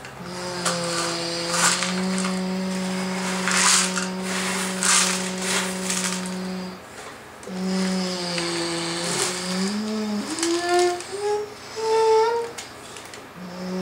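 A person humming a low, steady drone that breaks off briefly and then rises in pitch in steps near the end. Under it, small gravel rattles and clicks as the toy excavator's plastic bucket and a hand scrape through the pile.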